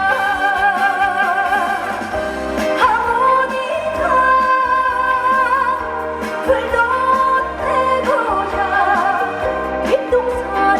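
A woman singing a trot song live over its musical accompaniment, holding long notes with a wide vibrato.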